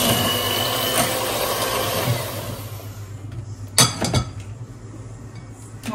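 Electric hand mixer running steadily, its beaters whisking a liquid cake batter of oil, milk and yogurt; louder for the first couple of seconds, then softer, with a single knock about four seconds in.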